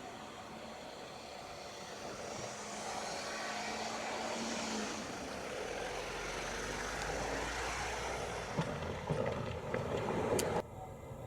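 A train running past, its steady running noise swelling over the first few seconds, with a low hum joining about halfway and a few sharp clicks near the end; the sound cuts off suddenly about a second before the end.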